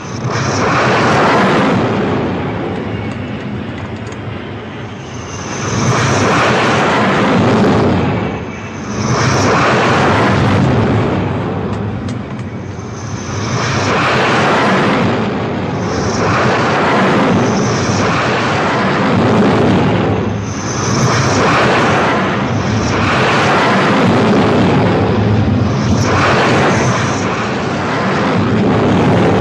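Douglas A-4 Skyhawk jet engines running at full power for carrier catapult launches. The jet noise comes in swells every two to three seconds, several of them opening with a brief high hiss.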